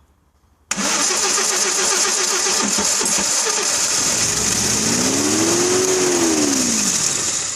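The Audi 2.3 L five-cylinder K-Jetronic engine is cranked on the starter, cutting in suddenly with a quick regular rhythm. After a few seconds it runs and revs up and back down once, then dies away near the end. The car has a starting and misfire problem that was traced to the fuel distributor.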